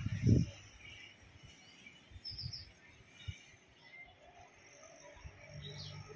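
Quiet outdoor ambience with a few short, high bird chirps, and a brief low thump just after the start.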